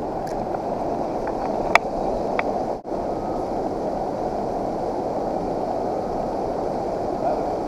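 Steady rushing noise of river water around a small boat, with two short ticks about two seconds in and a momentary dropout near three seconds.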